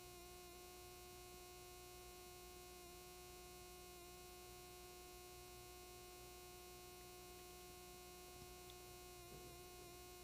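Near silence: a faint steady hum with light hiss.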